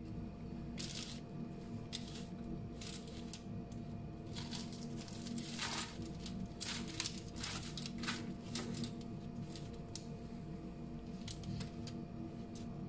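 Knife cutting through a baked puff-pastry patty, the crisp flaky layers crackling in a run of short crunches, with the pastry pulled apart near the end. A steady low hum runs underneath.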